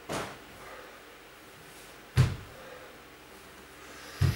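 Two dull thumps about two seconds apart, the first the louder, after a short rustle at the start: objects being set down or knocked while things are handled.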